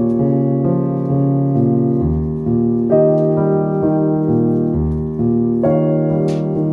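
Background music played on piano or electric piano: slow sustained chords changing about once a second.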